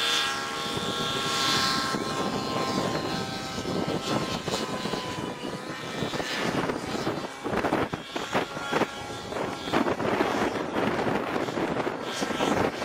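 Electric motor and propeller of a 59-inch electric RC biplane in flight: a steady whine, clearest in the first couple of seconds and then fainter. Irregular gusts of wind noise on the microphone run under it.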